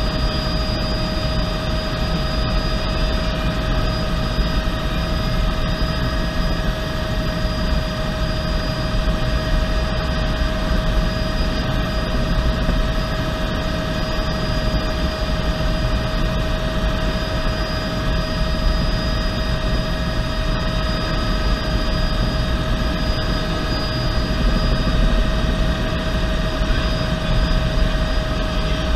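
Bell 206B3 JetRanger helicopter in flight, heard from inside the cabin: a steady, high turbine whine over low rotor rumble and rushing air noise.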